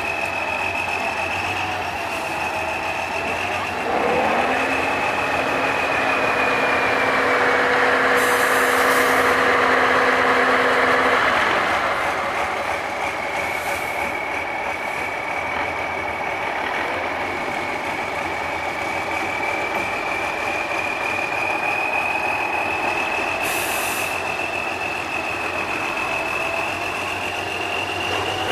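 Tatra 813 8x8 trial truck's diesel engine working under load, its pitch rising about four seconds in, holding steady, then easing off around twelve seconds, with a high steady whine over it. Two short high hisses come near 8 seconds and near 24 seconds.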